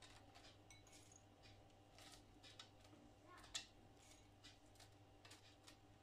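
Faint, scattered light ticks of slivered almonds being dropped by hand onto muffin batter and the rim of a metal muffin tin, with one sharper click about three and a half seconds in. A low steady hum runs underneath.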